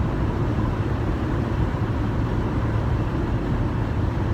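Steady low rumble of a moving vehicle, road and engine noise with no changes.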